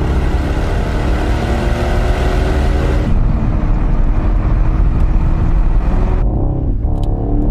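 Mercedes-AMG GT 63 Pro's twin-turbo V8 exhaust, running hard at speed with a steady, full engine note. A little after six seconds in, the revs dip and waver briefly, then pick up again.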